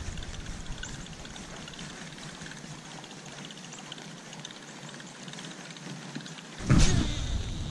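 Steady hiss of rain falling on a pond. Near the end a sudden, louder burst of noise breaks in.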